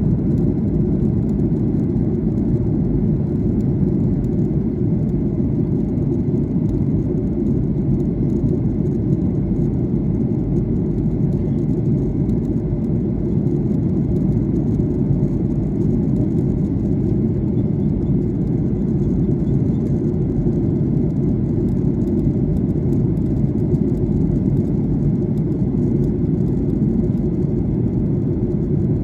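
Steady low rumble of an airliner's engines and rushing airflow, heard from inside the passenger cabin.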